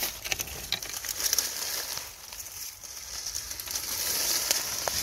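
Leaves and twigs rustling and crackling close to the microphone as the camera is pushed through dense bushes, an irregular crinkly rustle made of many small clicks.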